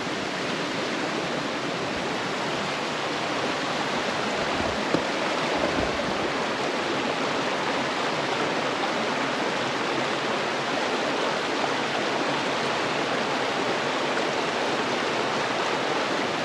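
Mountain river rushing, a steady, even sound of flowing water.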